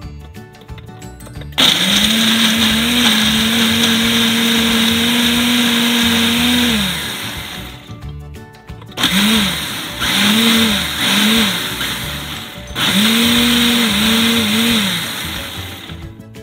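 Countertop blender motor blending a liquid marinade of onion, green pepper, spices, oil and lemon juice. It starts about a second and a half in and runs steadily for about five seconds, then stops. After that it comes back in several short pulses, each rising and falling in pitch, and ends with a longer run that wavers.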